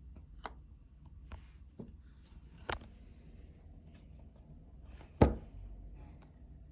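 Small objects being handled and set down on a hard surface: a few light clicks and taps, then one sharp knock about five seconds in.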